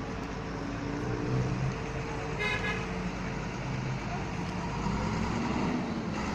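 Road traffic with vehicle engines running and a short horn toot about two and a half seconds in.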